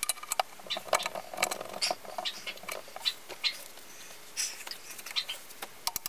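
Small metal parts of a phonograph spring motor being handled and fitted: irregular clicks, light clinks and short scrapes. A fast, even ticking starts at the very end.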